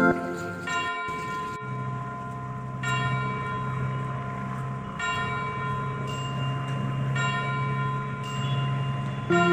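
Background music in a slow bell passage: chime-like tones struck about every two seconds and left to ring over a steady low drone. Faster notes come back near the end.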